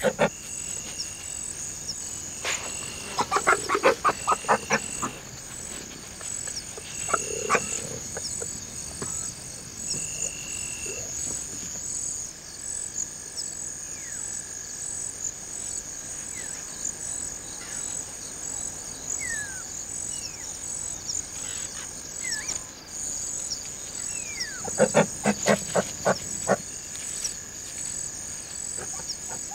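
Night-time insect chorus, a steady high pulsing trill, with short chirping calls. Twice, at about three seconds in and again near the end, comes a loud, rapid rattling call from an animal.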